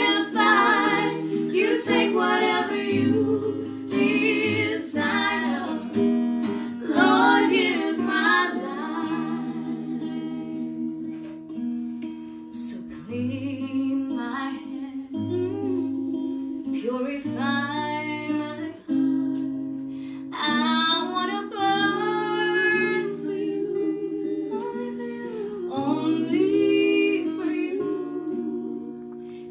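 Live worship song: a small group of singers, a woman's voice leading, accompanied by an acoustic guitar playing chords.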